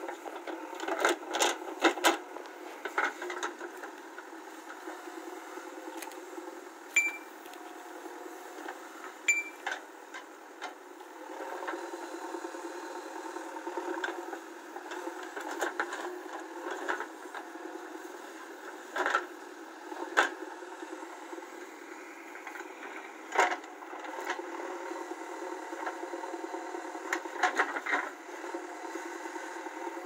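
JCB 3DX backhoe loader's diesel engine running steadily while the backhoe arm digs soil, with sharp irregular knocks and clatter from the bucket and boom.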